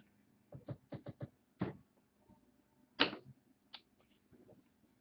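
A handful of light clicks and taps from handling on a tabletop, scattered irregularly, with the loudest single tap about three seconds in.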